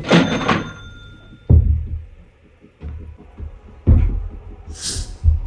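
Wooden board knocking and thudding as it is handled and stood against a metal stand: a sharp clattering knock with a brief ring at the start, then dull thuds about one and a half and four seconds in. Background music with a low pulsing beat runs underneath.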